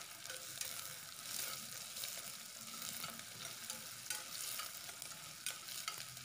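Sliced onions and green chillies sizzling in oil in a stainless steel pressure cooker, frying until they soften. A metal spoon stirs them, scraping and clicking against the steel pot.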